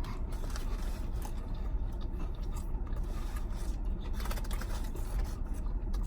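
Close chewing of a crispy fried chicken sandwich: irregular crunching and scraping crackles over a steady low rumble.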